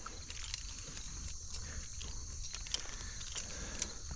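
Steady high-pitched drone of insects in the background, with a few faint light steps of horses being walked in.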